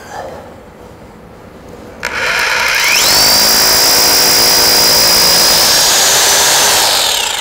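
Corded hammer drill boring a hole into a concrete slab with a long masonry bit. The motor's whine rises as it spins up about two seconds in, holds steady while the bit cuts, and falls off near the end as the trigger is released.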